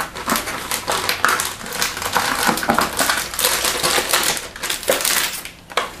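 Metallic anti-static bag crinkling and cardboard rustling as a motherboard is lifted out of its box: a dense crackle that dies down near the end.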